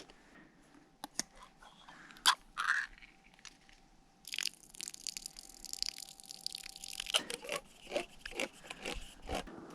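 A knife cutting grape tomatoes on a board: scattered sharp clicks and crunches, growing into a denser run of small clicks and crackle from about four seconds in.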